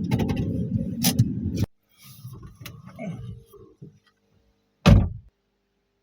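A steady low rumble that cuts off suddenly under two seconds in, followed by a few faint scraping and handling noises and one loud thump about five seconds in.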